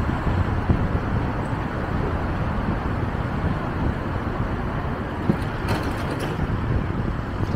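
Steady road noise of a car driving through city traffic: tyre and engine rumble with a few brief clicks about six seconds in.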